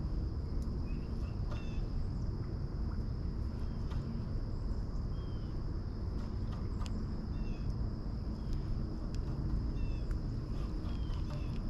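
Outdoor ambience: a steady high-pitched insect drone with short bird chirps every second or so over a low rumble, with a few sharp clicks scattered through.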